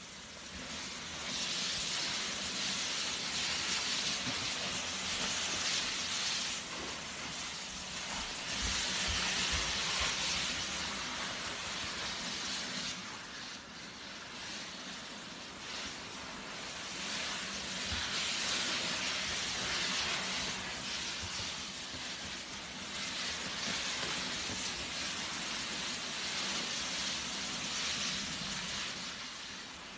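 Cardboard box being pushed and sliding across the floor: a rough scraping hiss that comes in long pushes of several seconds with short lulls between. A few low thumps.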